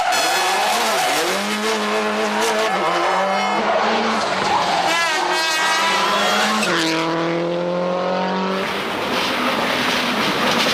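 Subaru Impreza WRC rally car's turbocharged 2.0-litre flat-four engine revving hard at speed on tarmac. The engine note climbs and falls with the gear changes, and about two-thirds of the way through it drops sharply, then climbs again as the car accelerates.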